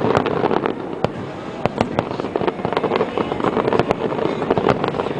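Aerial fireworks display, many shells bursting in quick overlapping succession, several sharp bangs a second.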